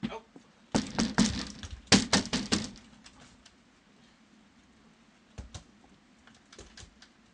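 Bears clambering over a wooden deck gate and railing: a quick run of knocks and clatters from claws and weight on the wood, starting about a second in and lasting about two seconds, then a few fainter knocks near the end.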